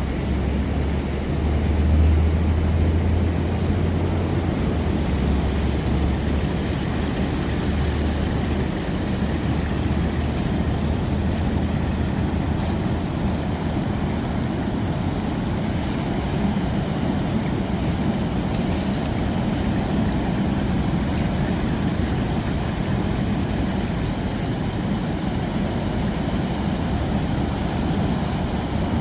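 Steady outdoor wet-weather ambience of rain, wind and ocean surf as a continuous hiss. A deep low rumble runs under it for the first several seconds, then fades.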